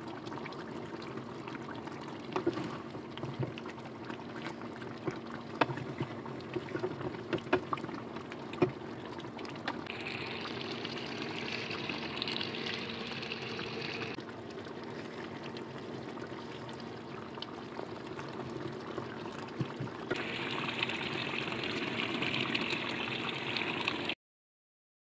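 Chicken roast gravy simmering in a pan, bubbling steadily with small pops and crackles over a low steady hum. A louder hiss comes in twice for a few seconds. The sound stops abruptly near the end.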